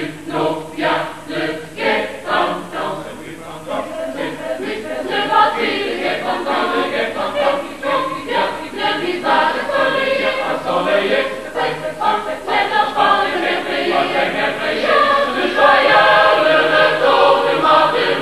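Large mixed choir of men and women singing a French part-song in harmony, with short, detached syllables at first, then fuller held chords that grow louder toward the end.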